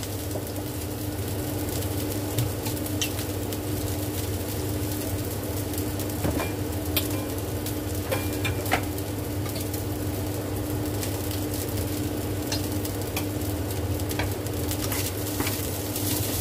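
Cooked rice frying in a hot pan: a steady sizzle with scattered pops and crackles, over a steady low hum.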